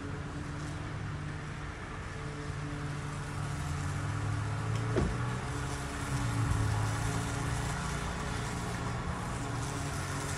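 An engine running steadily in the background, a low pitched hum that shifts up slightly after a brief sharp knock about halfway through.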